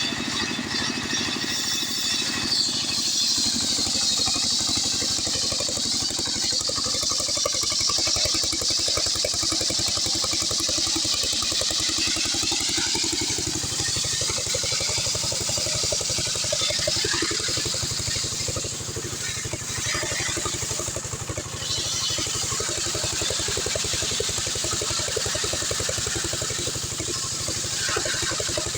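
Stihl 070 two-stroke chainsaw running steadily at high revs under load, its chain ripping lengthwise through a hardwood log in a chainsaw mill.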